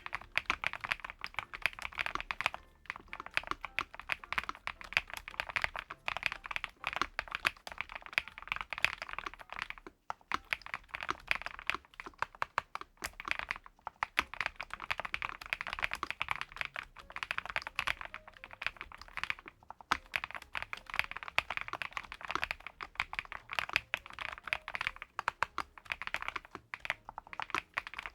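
Fast continuous typing on the ATK VXE V75PRO, a gasket-mounted mechanical keyboard with an aluminium top cover and PBT double-shot keycaps. Dense keystroke clicks come in runs, with short breaks a few times.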